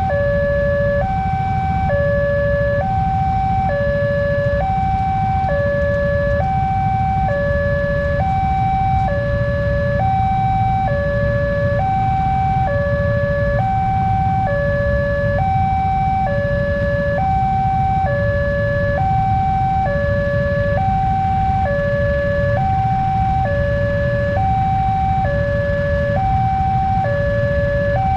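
Railway level-crossing warning alarm sounding continuously, a two-tone signal alternating between a higher and a lower tone about every half second, over the low rumble of motorcycle engines idling at the closed barrier.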